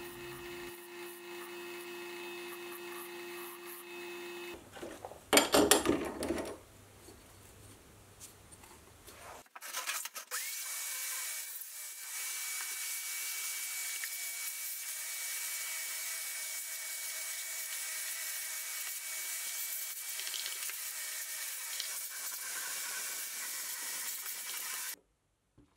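Sieg C3 mini lathe running with a steady motor hum while a file is held against a spinning wooden pattern, with a brief louder scraping burst a few seconds in. After a short lull, a vacuum hose runs steadily, sucking wood shavings off the lathe bed, with a thin high whine over its hiss.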